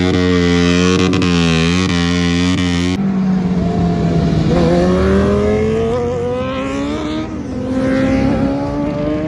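A sportbike's engine held at high revs during a burnout, the rear tyre spinning. About three seconds in the sound changes abruptly to motorcycles accelerating away, their engine pitch rising, easing off briefly and rising again.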